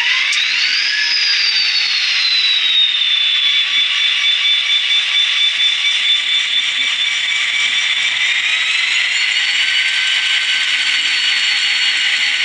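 ESU LokSound sound decoder in a Kato SD45 model locomotive, playing its diesel prime-mover sound through the model's small speaker. A high turbocharger-like whine peaks about a second in, then settles to a steady pitch. It climbs again around eight to nine seconds in and holds there.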